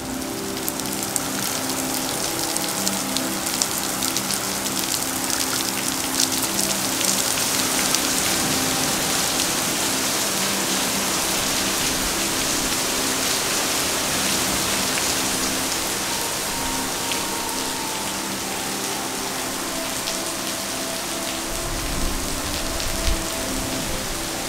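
Heavy rain falling steadily, a dense hiss of drops pattering on wet pavement and boardwalk, with fine individual drop ticks. A brief low thump near the end.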